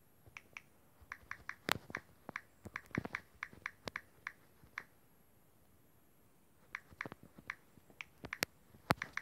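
Typing on a smartphone's touchscreen keyboard: quick runs of small, irregular tap clicks, a few of them sharper, with a pause of about two seconds in the middle.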